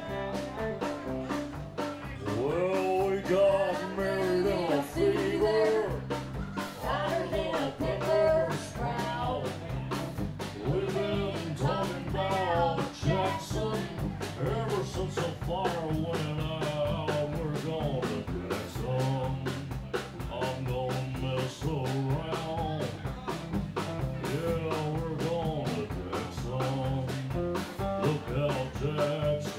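A live country band playing an upbeat song on electric guitars, electric bass and drums, with a steady drum beat under a bending lead guitar line.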